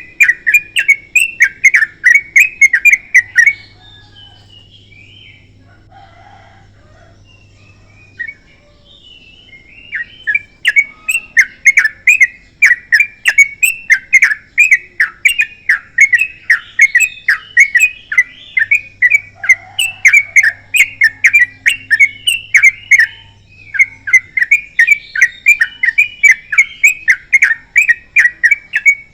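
Yellow-vented bulbul (trucukan) singing a long, fast run of repeated chattering notes, about four a second. The run breaks off a few seconds in, leaving only scattered soft notes for several seconds, then resumes, with another short pause near the end.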